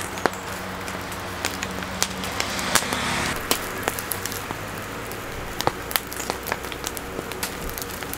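Fire crackling with many irregular sharp pops as coconuts are burned, over a steady low motor hum that drops away about three and a half seconds in.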